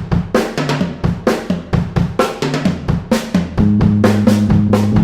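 Hard rock band intro: a drum kit plays a fast run of kick and snare hits, and low held bass notes come in for the second half.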